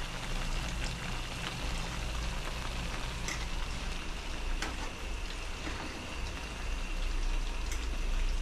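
Oil sizzling in a pan on the stove, a steady crackle with scattered small pops, over a low hum.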